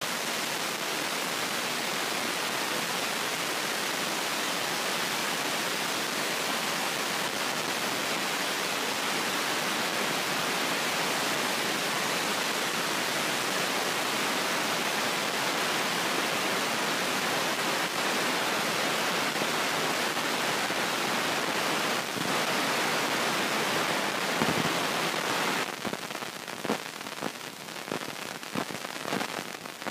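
Steady hiss of noise heard inside a moving car's cabin. About 25 seconds in it drops and turns patchy, with a few faint knocks.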